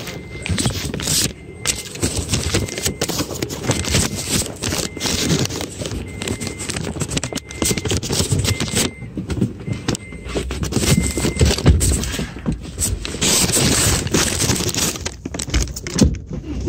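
Dense, irregular scraping and rustling noise, with a faint short beep repeating about once a second through the first two-thirds.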